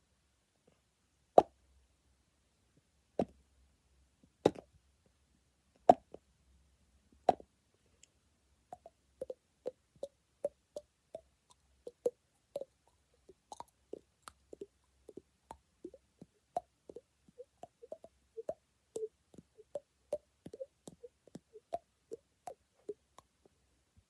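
A series of short, hollow pops: five loud ones about a second and a half apart, then a quicker run of softer pops, two or three a second.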